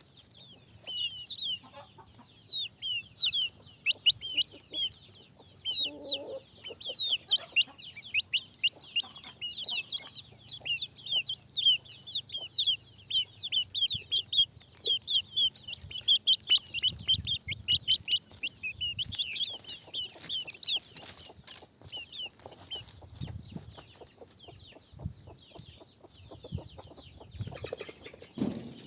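Chickens, with a dense run of short, high-pitched peeps for most of the time that thins out near the end, over scattered low clucks.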